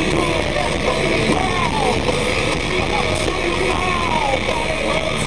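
Nu-metal band playing loud and live, with distorted electric guitars and drums, and pitched notes sliding up and down above them.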